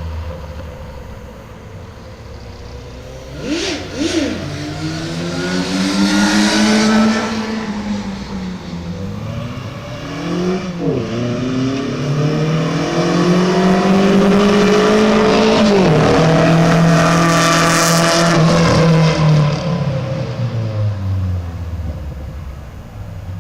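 Volkswagen Gol G2 engine and exhaust revving several times: two quick blips about four seconds in, a longer rev that rises and falls, then a higher rev held for several seconds before dropping back toward idle near the end.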